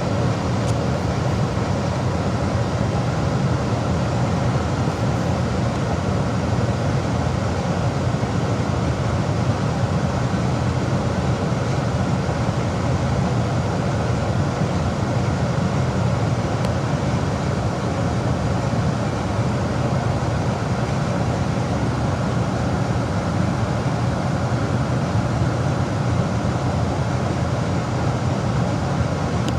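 Gas furnace running steadily: a constant low rumble that does not change.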